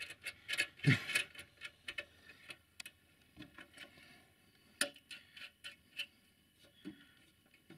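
Irregular small metallic clicks and taps as a hand tool works a bolt and nut under the sheet-metal bonnet of a UTB U650M tractor.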